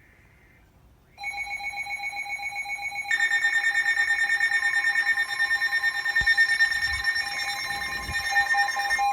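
Weather alert radio alarms beeping in rapid pulses, set off by an incoming severe thunderstorm warning. One alarm starts about a second in, and a second, higher alarm joins about three seconds in.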